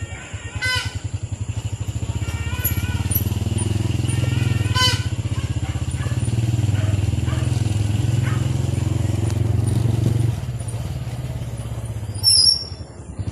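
A small engine running steadily, easing off a little about ten seconds in, with a few short high squeaks over it.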